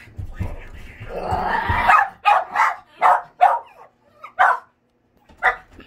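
Small dogs barking excitedly at a closed door as someone arrives home. A noisy stretch builds for the first two seconds, then comes a quick string of about eight sharp barks.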